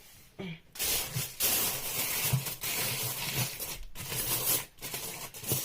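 Aluminium foil crinkling and rustling as it is pressed and tucked around a bowl, starting about a second in and going on in uneven spells with brief pauses.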